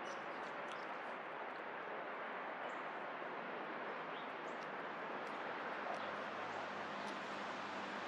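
Steady outdoor background noise with a few faint, short chirps of small backyard birds at a feeder. A low steady drone joins near the end.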